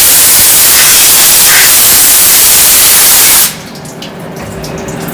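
Coolant spraying inside a CNC machine as it cuts, a loud steady hiss that cuts off suddenly about three and a half seconds in. A quieter machine hum with light clicking follows.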